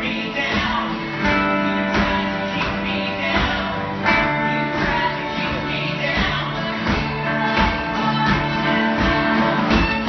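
Live acoustic music from cello and fiddle: sustained notes over a regular plucked rhythm.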